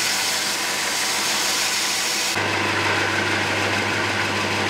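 Small bench belt sander running, with the knife's wooden handle ground against the belt as it is shaped down on one side. About halfway through the grinding hiss thins as the piece comes off the belt, leaving the sander's motor humming steadily.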